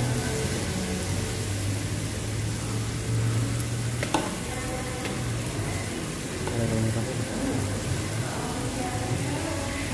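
Meat sizzling on a Korean barbecue dome grill pan over a portable gas stove: a steady hiss with a low hum underneath, and one sharp click about four seconds in as a utensil touches the pan.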